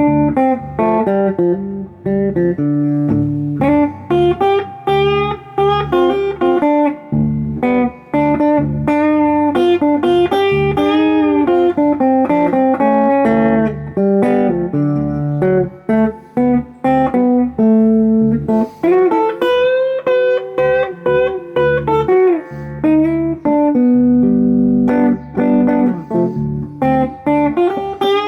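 Electric guitar, a Harley Benton HB35 semi-hollow 335 copy, played through a Fender Sidekick Reverb 25 solid-state practice amp set to a light overdrive with full bass and a little spring reverb. It plays blues lines of single notes with string bends over low bass notes.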